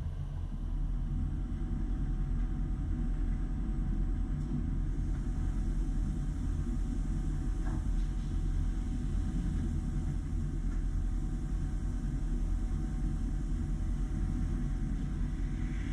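DMG DMU 50 universal machining centre running: a steady low hum and rumble with a faint steady whine above it.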